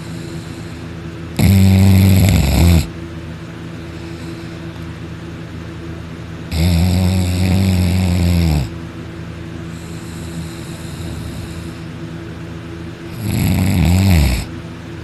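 A sleeping person snoring loudly: three long snores, each a second or two, about five to six seconds apart.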